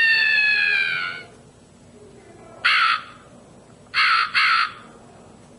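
Horror sound-effects machine playing a recorded scream that slides down in pitch and fades out about a second in, then recorded crow caws: one, and a moment later two in quick succession.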